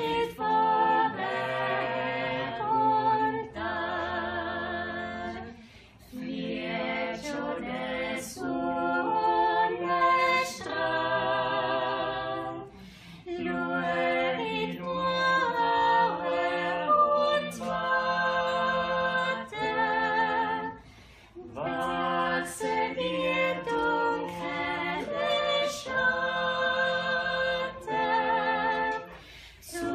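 Background music: an a cappella choir singing slow phrases of held, wavering notes, with brief pauses between phrases.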